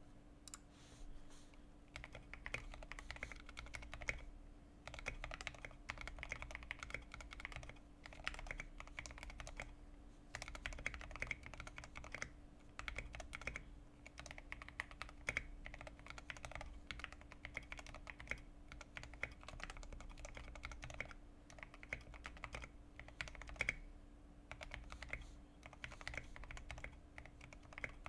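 Modded Fantech MAXFIT61 mechanical keyboard with lubed Outemu Red linear switches, dampened with foam, tape and o-rings, being typed on fast. It makes a dense stream of keystrokes that begins about two seconds in and breaks off briefly every few seconds. A faint steady hum sits underneath.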